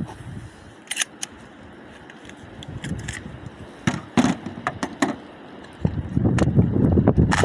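Scattered sharp metallic clicks and light rattles, then a rising rumble of wind on the microphone from about six seconds in.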